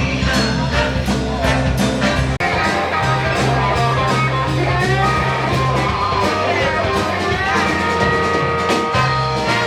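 Live rock band playing an instrumental passage, with held melodic notes over a steady bass line and drum beat.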